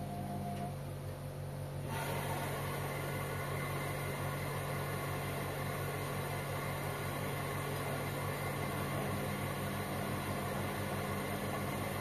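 Front-loading washing machines running together, their drum motors humming steadily as laundry tumbles. About two seconds in, a steady hissing rush sets in suddenly and carries on.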